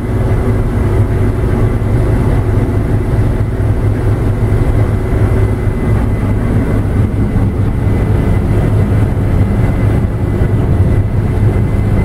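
Combine harvester running steadily under load while picking up windrowed foxtail millet, a constant low drone of engine and threshing machinery heard from inside the cab.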